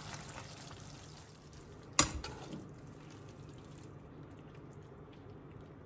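Hot vegetable mix of cabbage, carrots and peppers in oil-and-vinegar liquid in an aluminium pan, faintly bubbling and fading as it settles with the heat switched off. One sharp knock about two seconds in, then a few faint ticks.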